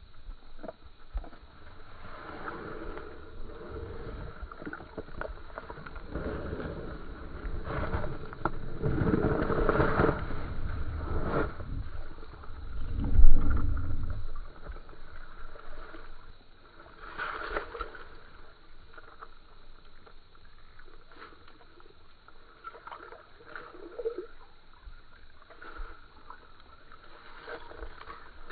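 Water sloshing and gurgling in an ice-fishing hole as a large smallmouth bass is held in it and released. It is loudest, with a deep rumble, about halfway through, then settles to quieter splashes.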